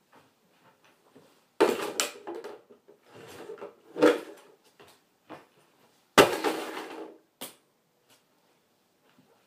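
Plastic toys knocked, kicked and stepped on by high-heeled shoes: a string of sharp knocks with rattling clatter after each. The loudest hit comes about six seconds in.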